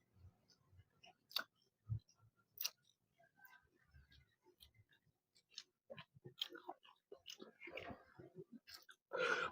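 Close-miked eating sounds from working through a snapper head: chewing with scattered wet clicks and mouth smacks, and a louder burst of noise near the end.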